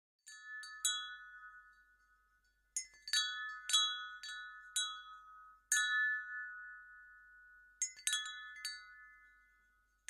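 Metal chimes struck in loose clusters every two to three seconds, several bright pitches ringing on together and fading away between strikes.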